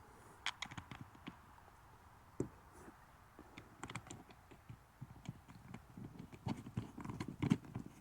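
Irregular small clicks and knocks of a backup camera and its rubber gasket being handled and fitted against a camper's rear wall, sparse at first and busier in the last couple of seconds.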